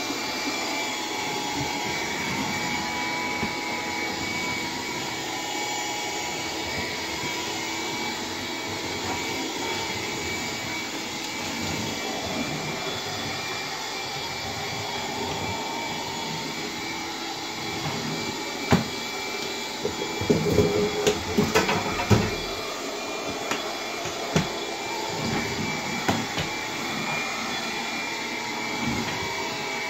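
Bissell PowerGlide cordless stick vacuum running steadily on low power with its brush roll off, a held whine over the suction noise. Between about 18 and 26 seconds in, a run of sharp clicks and knocks.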